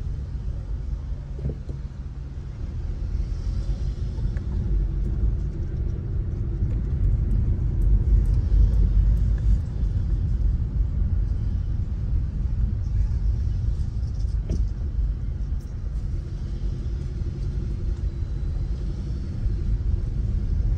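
Low, steady rumble of a car driving slowly, heard from inside the cabin: engine and tyre noise, a little louder around the middle.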